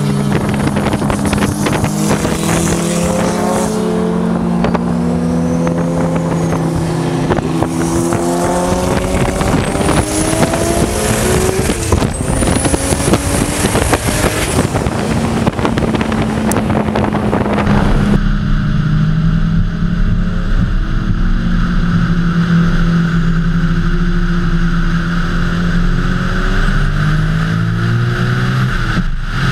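Turbocharged Toyota 2JZ inline-six in a swapped Mustang, pulling hard through the gears: its pitch climbs and drops back at each shift. A high turbo whistle rises twice near the middle. About two-thirds through, it settles into steady highway cruising with wind noise.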